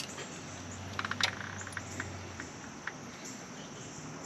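Scattered light metal clicks as a drum brake hold-down spring and pin are fitted to the shoe, with a sharp click right at the start and a small cluster about a second in. A low steady hum stops about two and a half seconds in.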